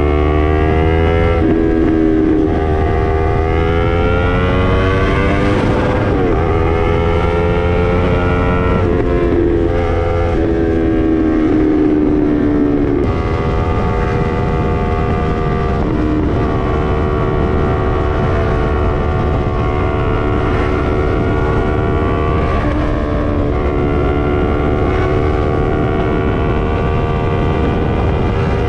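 Yamaha MT-03's parallel-twin engine through an SC-Project full exhaust system under riding load. Its pitch rises and falls several times through the first half, like accelerating and easing off through gears in curves, then holds steadier from about halfway on.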